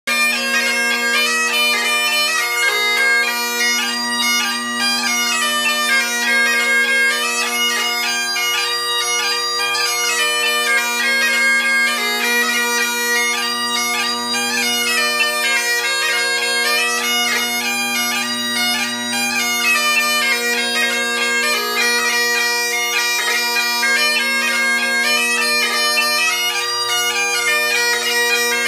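Great Highland bagpipes playing a tune: the drones hold one steady tone under the chanter's melody, without a break.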